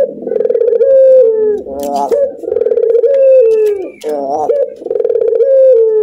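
Domestic ringneck dove (puter) giving its laughing coo, three times: each call is a held note that drops at the end, then a short coo that rises and falls.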